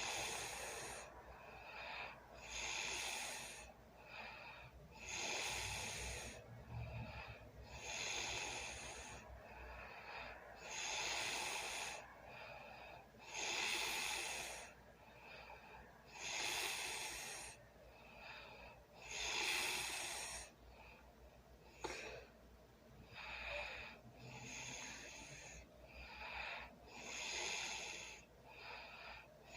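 A sleeping person snoring, with noisy, hissy breaths coming regularly about every two and a half to three seconds.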